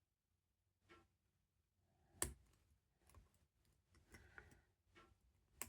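Faint, scattered clicks and light scrapes of a lock pick and tension wrench working in a padlock's keyway during single-pin picking, the sharpest click about two seconds in and a small cluster around four seconds, with near silence between.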